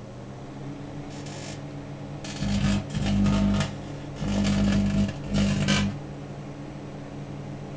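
Microwave oven running with a steady electrical hum, broken by loud buzzing bursts of plasma flaring inside the cavity. There are four bursts: a faint short one about a second in, then three loud ones lasting roughly half a second to a second and a half each.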